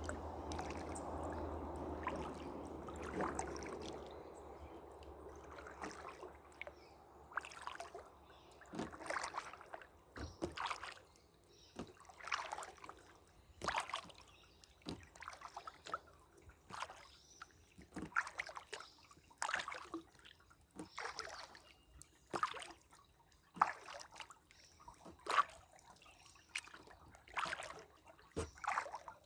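Canoe paddle strokes: the blade dips and pulls through the water about once a second or so, with splashes and drips trickling off between strokes. A steady rushing noise with a low hum fades out over the first few seconds before the strokes become distinct.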